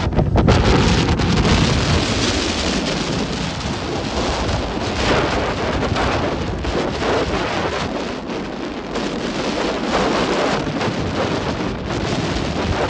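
Rough sea surging and breaking, a continuous loud churning wash of surf, with a heavy low rumble of wind on the microphone at the start.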